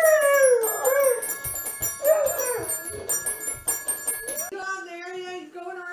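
Yellow Labrador puppy howling along to a child's toy keyboard, which plays quick high tinkling notes: one long falling howl at the start and a shorter one about two seconds in. Near the end the music stops and a person's voice takes over.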